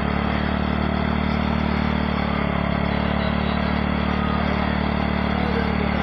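Junoon motorcycle engine running steadily at an even speed, its rear tyre turning a small water pump that lifts water without electricity.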